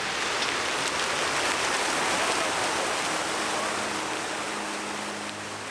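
A steady rushing noise like running water swells and then slowly fades, and a faint low hum comes in about halfway.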